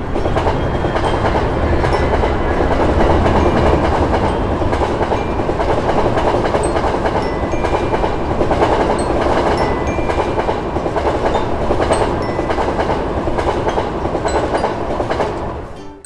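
Electric passenger train passing at speed over a level crossing: a loud, steady rumble and rush of wheels on rails that starts suddenly and cuts off suddenly near the end.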